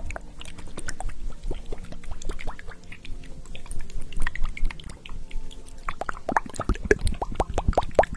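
Close-miked ASMR hand sounds: fingers working something wet and sticky, a dense run of small wet clicks and crackles that grows thicker and louder, with soft low thumps, about two-thirds of the way through.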